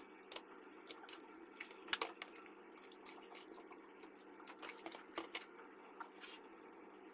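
Water dripping and trickling from boiled yufka dough sheets draining in a plastic colander into a bowl. Irregular small drops and clicks sound over a steady low hiss.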